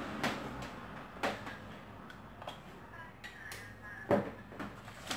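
Scattered light clicks and knocks from a plastic power plug and cord being handled and set down on a countertop, the sharpest knock about four seconds in.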